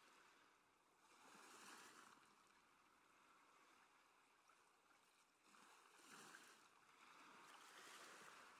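Faint rush of sea water along a wooden catamaran's hulls, swelling and easing about three times.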